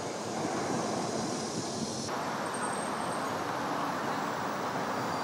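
Steady city traffic noise, a dense rumble and hiss of vehicles with no single standout event; the highest part of the hiss drops away abruptly about two seconds in.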